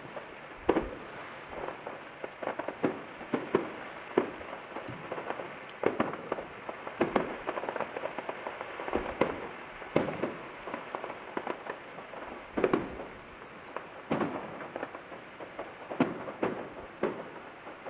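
Distant fireworks display: a dense, irregular run of bangs and crackling reports, several a second, with louder single bangs standing out every few seconds.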